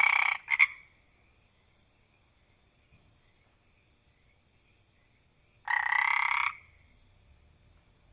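Frog croaking: a rasping call ends just after the start, followed by a short note, and a second croak of under a second comes about six seconds in. Faint steady high tones sound in between.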